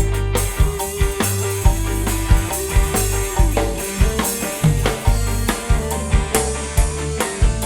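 Dangdut koplo band playing live through a large PA sound system: a steady, driving drum beat over heavy bass, with a sustained melody tone on top.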